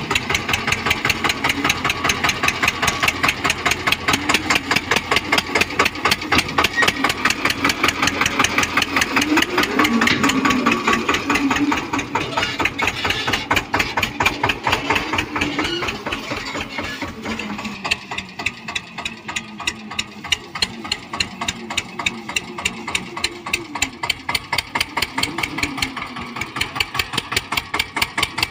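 Eicher 242 tractor's single-cylinder air-cooled diesel engine running with an even, rapid beat of firing pulses. It gets a little quieter for the last third.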